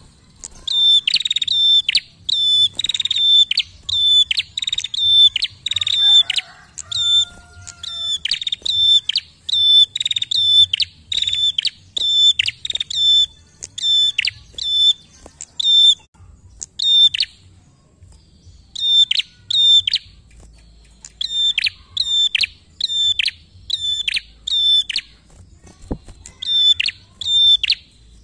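Prenjak (a small prinia-type songbird) calling loudly: a fast string of sharp, high notes, each a short held note that drops away quickly, repeated about twice a second with a couple of brief breaks in the second half.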